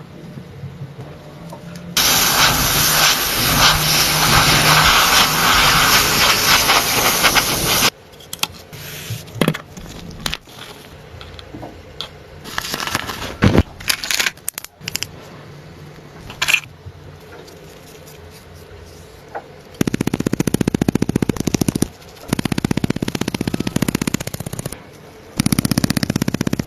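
Water spraying with a loud hiss for about six seconds, then scattered clanks and clicks of work on a car. Near the end, a car engine is cranked over by its starter in three bursts without catching.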